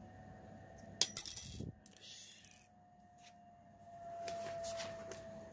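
A small metal part drops onto the wooden tabletop about a second in, hitting with one sharp click and a brief high metallic ring. Light clicks and rustling of small parts follow later.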